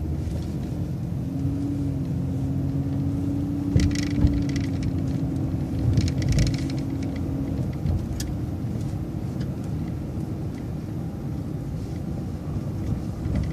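Transit bus running along a city street, heard from on board: a steady low drivetrain rumble, with a level whine for the first several seconds and a couple of short hissing bursts around the middle.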